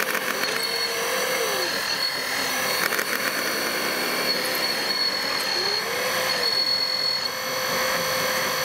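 Small electric motors and gearboxes of a radio-controlled model wheel loader whining as it drives through gravel, with a steady high whine and a lower motor tone that rises and falls in pitch several times as the throttle changes.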